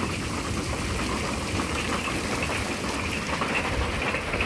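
Heavy rain and hail falling on a fifth-wheel RV, heard from inside as a dense, steady patter with a low rumble beneath it.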